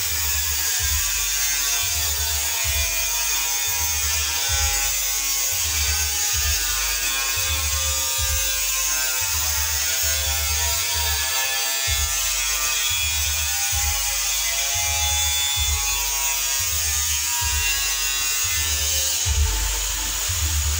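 Background music with a steady pulsing bass beat under sustained, slowly gliding melodic tones.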